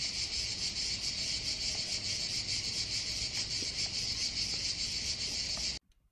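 Steady, high-pitched chirring of insects in the summer grass, which cuts off suddenly near the end.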